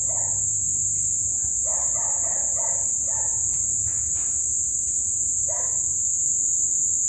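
Dense chorus of crickets chirping as one steady high shrill, with a rooster crowing over it a few times, the longest crow from about one and a half to three and a half seconds in.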